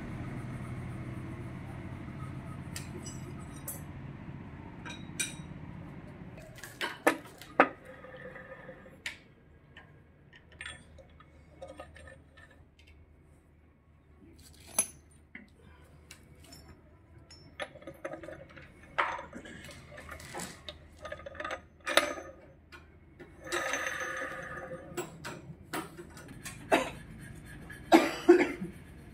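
Metal clinks and knocks of Honda Dio 110 scooter engine parts being handled: tools set down and transmission gears and shafts fitted into the aluminium crankcase, with a few sharp taps. A steady low hum fades out over the first several seconds.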